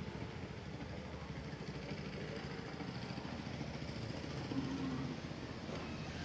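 Steady low rumble of an idling engine, with a rapid even pulsing.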